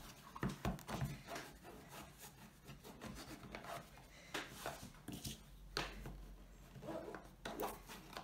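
Hands handling a cardboard box and rubbing strips of adhesive tape down onto its corners: quiet, irregular rustling, scraping and light taps.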